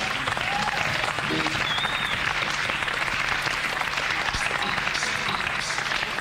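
Concert crowd applauding and cheering, a dense steady clatter of clapping, with a short whistle about two seconds in, heard on an old live tape recording.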